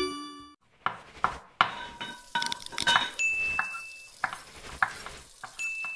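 End-screen sound effects: a ringing bell-like chime at the start as the subscribe bell is clicked, then a short logo jingle of quick clinks and clicks like dishes and cutlery, with a held high ding twice.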